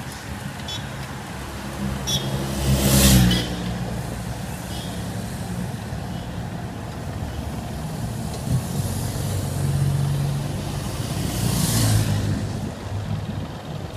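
Cars driving past close by: a loud pass about three seconds in and another near the end, engine and tyre noise rising and falling each time, over steady street noise.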